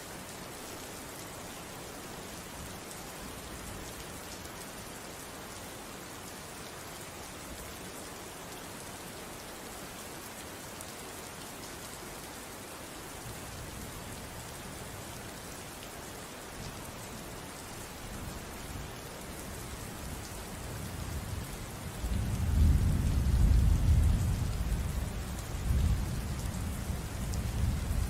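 Steady rain falling, an even hiss throughout. In the second half a low rumble of thunder builds, loudest a few seconds before the end, then eases off.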